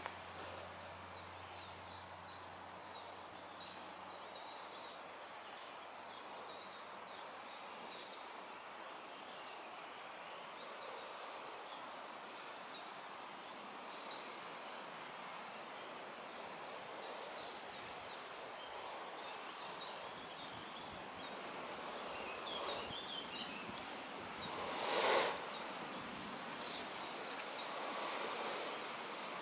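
Breath blown steadily into a smouldering tinder bundle to coax a bow-drill coal into flame, the blowing hiss growing louder near the end with one stronger blow about 25 seconds in. Birds chirp repeatedly, mostly in the first half.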